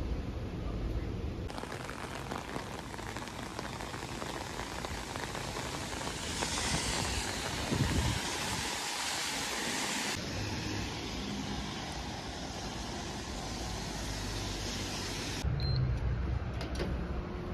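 Steady rain falling on an umbrella and wet pavement, a continuous hiss. It follows a short stretch of bus rumble at the start and gives way near the end to a quieter low rumble with a few clicks.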